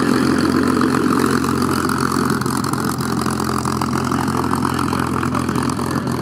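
P-51D Mustang's Packard Merlin V-12 engine running at low taxi power, a steady low rumble that grows a little quieter about halfway through as the aircraft moves past.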